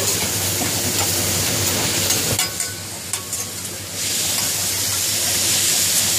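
Food sizzling on a steel teppanyaki griddle while a metal spatula scrapes and clinks against the cooking surface. The sizzle drops for about a second and a half midway, with a couple of sharp metal clicks.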